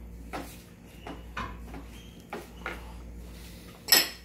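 Glass spice jars being handled and set down on a glass-topped table: a few light clicks and knocks, then one sharp, loud clack near the end.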